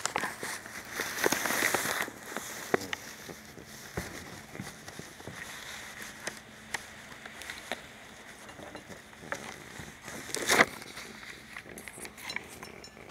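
A person moving about: scattered light footsteps, small clicks and knocks, and rustling. There is a louder rustle about a second in and a brief louder one near the end.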